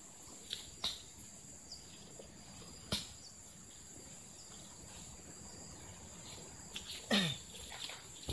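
Steady high-pitched insect drone, with a few scattered sharp clicks and rustles. About seven seconds in, a louder squelch as a rubber boot steps in the wet mud.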